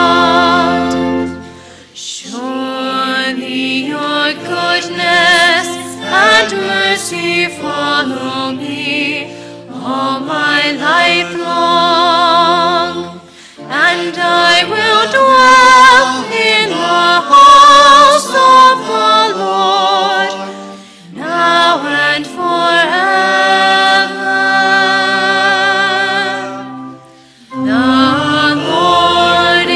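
Female cantor singing the responsorial psalm solo with vibrato, in phrases separated by short pauses, over sustained instrumental accompaniment. Near the end, the congregation is invited into the refrain.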